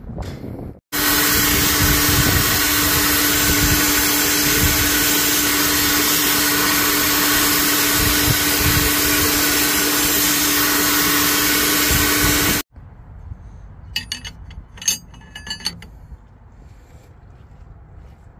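Oxy-acetylene torch flame hissing loudly and steadily with a low hum in it, heating a seized air-line fitting on a truck's engine air compressor to free it. It cuts off abruptly, and a few light metallic clicks of a wrench on the fitting follow.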